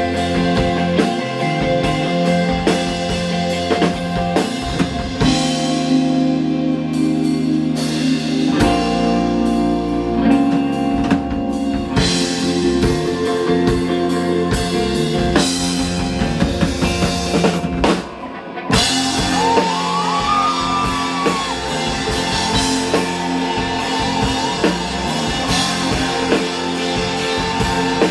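A rock band playing live, with drum kit and electric guitars. The music drops out briefly about two-thirds of the way through, then the full band comes back in with gliding guitar or vocal lines.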